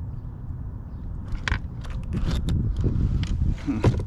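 Wind rumbling on the microphone, with scattered clicks and scrapes that grow busier from about a second in.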